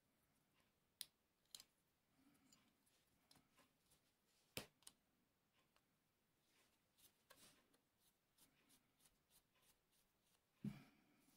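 Small steel parts of a miquelet flintlock and a screwdriver clicking faintly as the lock, clamped in a mainspring vise, is screwed back together. Scattered sharp ticks, one louder click about four and a half seconds in, and a duller knock near the end.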